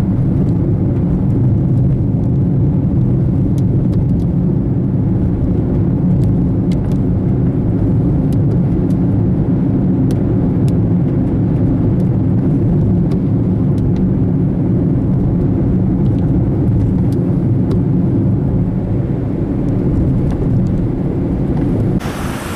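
Car driving at steady speed: a constant low drone of engine and road noise with a few faint ticks. Just before the end it cuts abruptly to a quieter hiss of wind noise.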